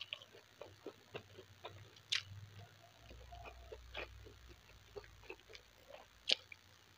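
Close-up eating sounds: wet chewing with mouth clicks and lip smacks, and fingers working rice on a tray. An irregular run of short clicks, the sharpest about six seconds in as a handful goes into the mouth.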